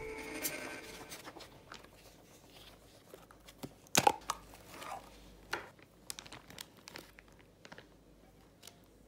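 Small kitchen handling noises: the lid of a plastic food container snaps sharply about four seconds in, among soft crinkling of a plastic zip bag and light clicks.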